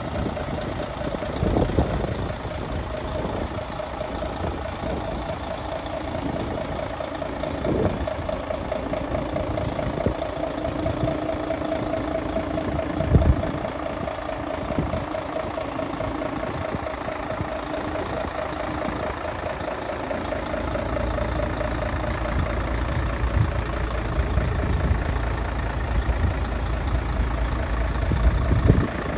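Mercedes-Benz Actros 1844 truck's V6 diesel idling steadily with a slightly wavering drone, growing to a heavier low rumble in the last third. A few short knocks come in about two, eight and thirteen seconds in.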